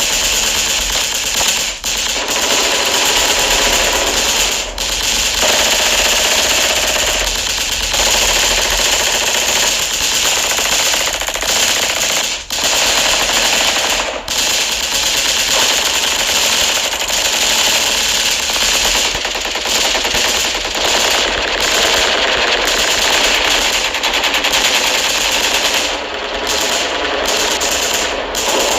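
Machine-gun fire in long, sustained automatic bursts, broken by a few brief pauses and turning choppier near the end.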